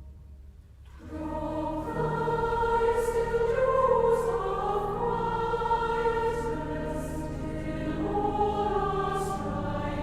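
A choir sings a worship song with instrumental accompaniment, coming in about a second in after a brief quiet lull.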